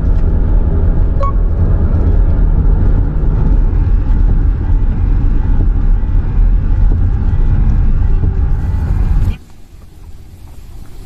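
Steady, loud low rumble of a vehicle on the move. About nine seconds in it cuts off suddenly to a much quieter background.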